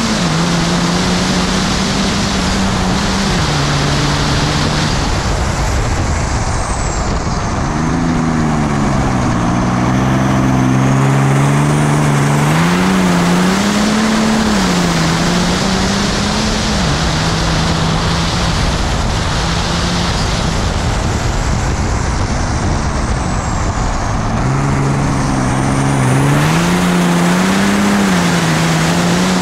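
Compound-turbocharged 6.7 Cummins inline-six race diesel running hard under load, its note climbing and dropping repeatedly as the revs change through the corners, over a steady rush of wind noise.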